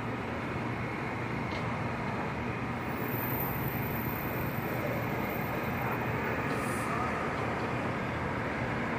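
Steady rumble of a New York subway train on the elevated Jamaica Line, growing slightly louder about three seconds in.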